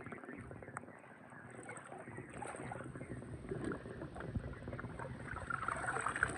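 Faint sloshing and splashing of swimming-pool water as a hand moves a die-cast toy car through it, growing a little louder near the end.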